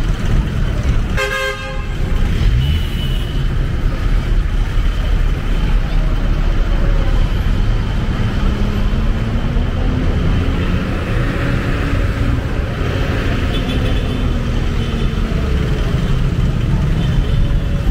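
Busy street ambience: steady traffic rumble and crowd voices, with a short vehicle horn toot a little over a second in.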